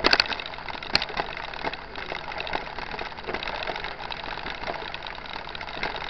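Mountain bike rolling over a gravel dirt road: a steady crunch and rattle of tyres and bike, with a few sharp knocks right at the start and again about a second in.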